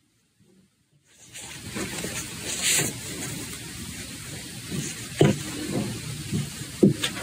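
Cotton fabric being handled and folded on a cloth-covered table: rustling and brushing of cloth with a few soft knocks of hands on the table, after about a second of near silence.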